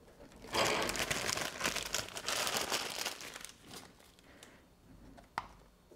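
Thin clear plastic bag crinkling and crumpling as it is pulled off a new brake master cylinder clamped in a bench vise, busiest in the first half and tapering off. One sharp click near the end.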